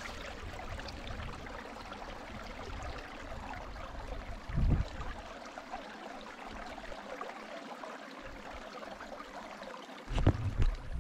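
Shallow creek water running and trickling over stones, a steady even rush. Two brief low thumps break in, about five seconds in and again near the end.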